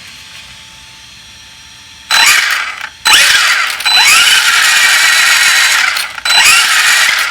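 Helion Select Four 10SC RC truck's electric motor and four-wheel-drive drivetrain revved with the wheels off the ground, in three throttle bursts starting about two seconds in: a short blip, a long run of about three seconds and a final short one, each with a whine that shoots up in pitch.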